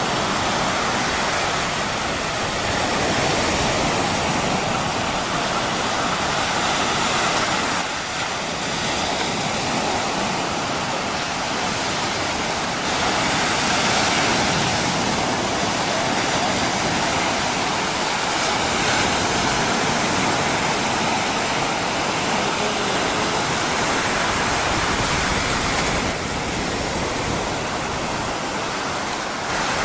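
Mediterranean sea waves breaking and washing up a sandy beach: a steady rush of surf that swells and eases every few seconds.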